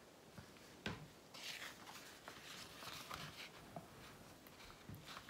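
Faint paper rustling and a soft click as a page of a paperback book is handled and turned.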